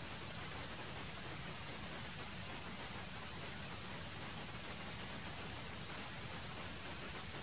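Insect chorus: a continuous high-pitched drone, unbroken and even, over faint steady background noise.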